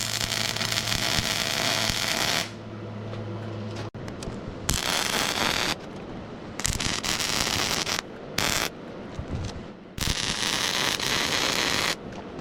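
Electric arc welding in short runs: about six stretches of crackling, sizzling arc, each one to two seconds long, with short pauses between them. A steady low hum sounds under the first weld and stops about four seconds in.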